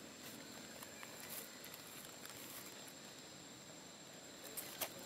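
Quiet outdoor ambience with a faint, steady high-pitched whine, and a few sharp clicks near the end.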